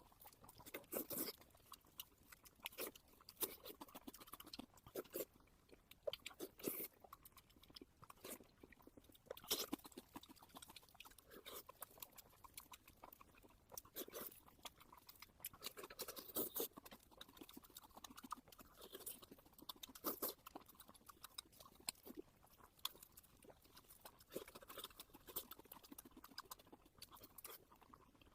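Close-miked chewing and mouth smacking, with irregular wet clicks and bites, as a person eats a large piece of pork belly.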